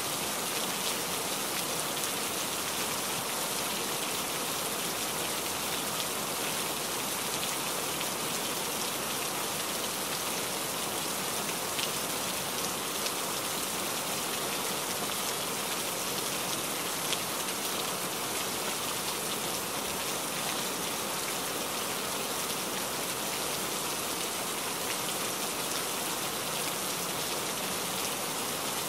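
Steady rain hitting a moving truck's windshield and cab, heard from inside, with a few sharper drop ticks scattered through it.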